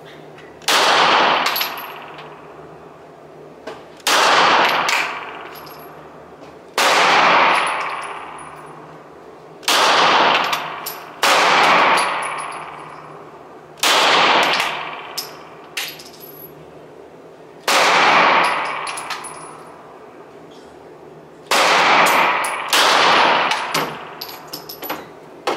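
Glock 17 9 mm pistol fired about nine single shots, spaced two to four seconds apart, each a sharp crack with a long echo off the indoor range walls. Light metallic tinkles follow several shots as the spent brass lands.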